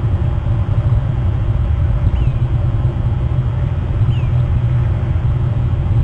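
Steady low rumble, with two faint short bird calls rising then falling in pitch, about two and four seconds in.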